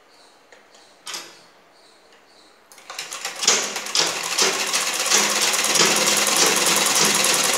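Sewing machine stitching along the edge of a cotton petticoat. It starts about three seconds in and then runs fast and steady with a rapid, even clatter.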